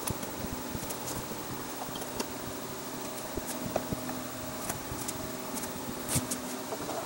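Scattered light metallic clicks and taps as the cast-iron knee and threaded elevating screw of a benchtop horizontal milling machine are handled and fitted by hand, over a steady low background hum.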